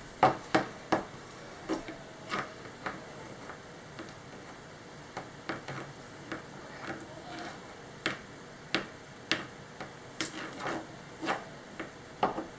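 Scattered sharp clicks and taps, irregularly spaced, from hands handling small hard objects while a recording device is being set up.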